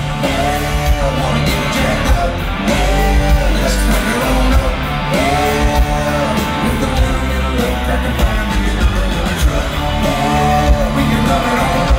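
Live country-rock band playing loud: drums, bass, electric guitar and singing, heard through a phone's microphone from inside the concert crowd.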